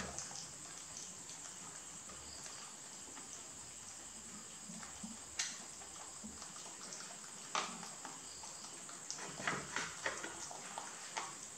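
Two rabbits chewing pieces of soursop: scattered short sharp clicks over a steady hiss, coming more often in the last few seconds.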